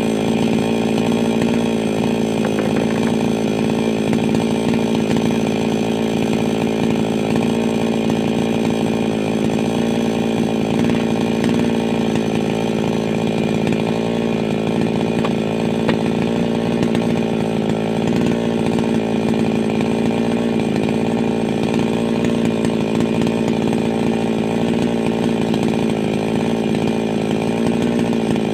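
588X chainsaw running at steady high speed, cutting through the trunk of a large tree; its engine note wavers slightly as the chain loads in the wood.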